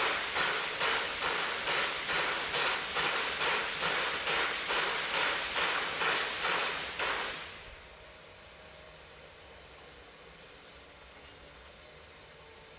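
Steam locomotive C12 66 standing still and giving off rhythmic hissing puffs of steam, about two to three a second, which stop about seven seconds in and leave a quieter steady hiss.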